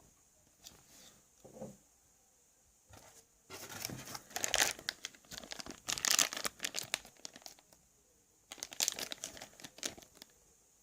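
Packaging being handled, crinkled and torn in irregular bursts of rustling, with a pause in the middle.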